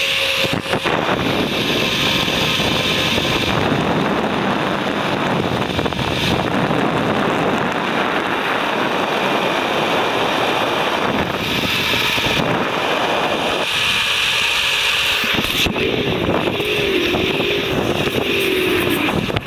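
Steady rush of wind on the microphone together with the running hiss of a zipline trolley on its steel cable at speed. A wavering hum comes in about three-quarters of the way through.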